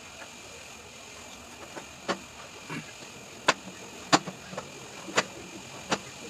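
Cleaver knife chopping a lime on a cutting board: about seven short, sharp knocks, spaced half a second to a second apart, starting about two seconds in, over a steady hum.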